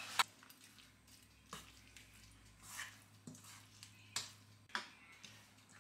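Metal spoon scraping and clinking against a stainless steel mixing bowl while stirring a chunky meat-and-vegetable filling with shredded cheese: about six short, separate strokes.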